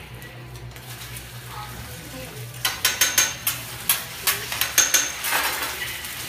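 Metal spatula clacking and scraping on a flat-top teppanyaki griddle as egg is chopped and scrambled, with frying sizzle. The rapid clacks start about halfway through and give way to sizzling near the end, over a steady low hum.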